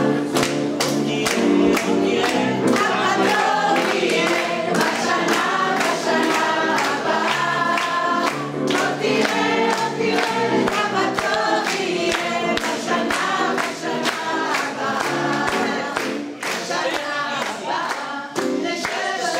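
Mixed choir of men's and women's voices singing, with rhythmic hand-clapping in time with the song.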